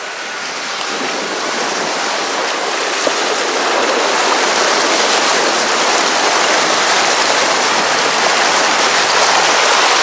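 Creek water rushing and splashing against a Land Rover Discovery 2 as it pushes a bow wave through a water crossing. The rush builds over the first few seconds, then holds steady and loud.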